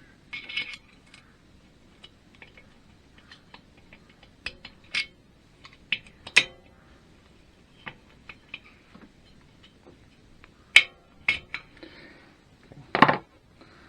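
Small steel engine parts and hand tools clinking and tapping against metal in a string of sharp, irregular knocks, with the loudest clinks about eleven seconds in and a heavier clatter near the end.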